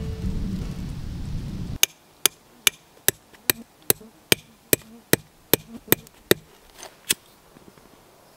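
Music cutting off abruptly, then a hatchet hammering in a tent stake: about a dozen sharp, evenly spaced blows, roughly two and a half a second, with one last blow after a short pause.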